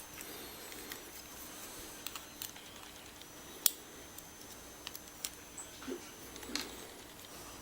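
Scattered small clicks and taps of metal lock parts, pins and tools, being handled while a challenge lock's cylinder is taken apart. One click a little past the middle is much sharper than the rest.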